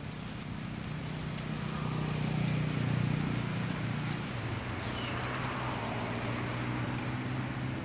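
A motor engine running steadily with a low hum, swelling to its loudest about two to three seconds in and then holding.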